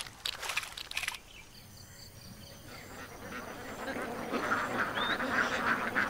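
Live fish splashing and thrashing briefly in a basin of water. Then a large flock of domestic ducks quacking in a dense chatter that grows louder from about three seconds in.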